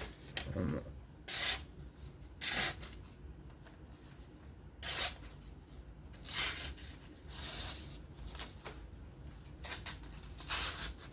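Knife blade being stropped or touched up on a sharpener: about half a dozen separate rasping strokes of the edge along the surface, irregularly spaced.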